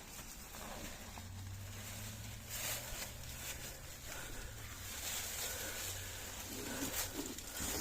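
Footsteps with rustling, a string of irregular short scuffs, over a faint steady low hum that fades out about halfway through.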